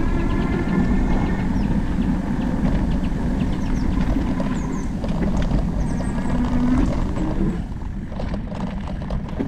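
E-bike riding along a dirt trail: wind rushing on the action camera and tyres rolling, with the electric motor's faint whine coming and going. There are scattered ticks from the trail surface and birds chirping. It gets quieter about eight seconds in.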